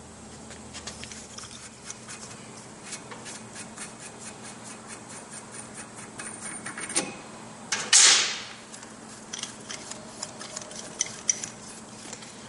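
Metal parts being worked off an ATV's rear axle hub by hand: scattered small metallic clicks and taps, with a louder scrape about two-thirds of the way through.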